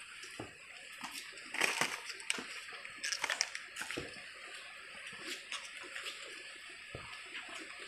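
Irregular rustling and scuffing of people moving about on foot close by, with louder bursts about two seconds in and again around three seconds in.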